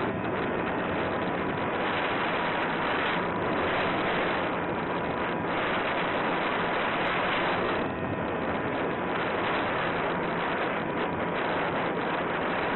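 Airflow rushing over the onboard camera's microphone of a small electric RC plane in flight, a steady hiss with a faint even hum from its motor and propeller underneath.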